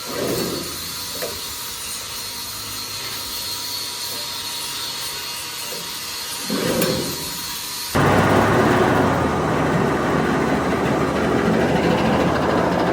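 Mini corn sheller driven by a 6.5 hp GX200-type single-cylinder petrol engine, running in a test run with a steady mechanical noise. About eight seconds in the noise jumps suddenly to a much louder, fuller level and stays there.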